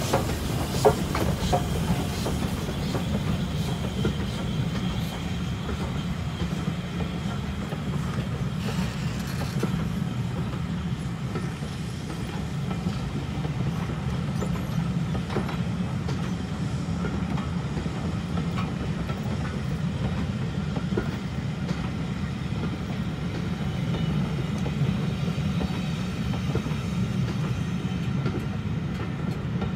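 A train of passenger coaches rolling past on the rails: a steady low rumble of the wheels, with sharp clicks over the rail joints, most of them in the first second or so.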